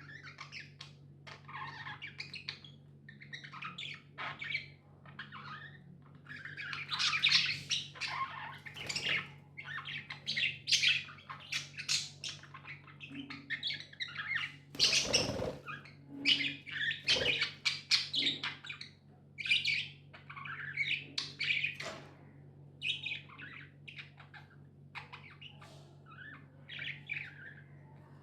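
Budgerigars chattering and chirping almost without pause, busiest and loudest through the middle. A sharp knock comes about fifteen seconds in, over a steady low hum.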